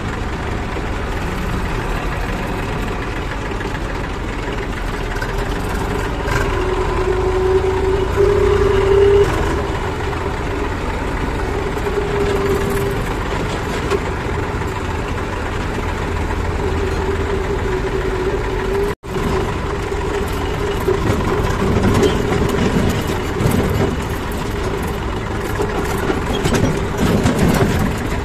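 Diesel engines of a JCB 3DX backhoe loader and a tractor running steadily as the machines move, with a constant engine hum. It cuts out briefly about two-thirds of the way through.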